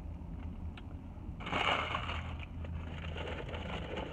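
Rustling and crinkling as something is handled, loudest about a second and a half in and going on more softly afterwards, over a steady low hum.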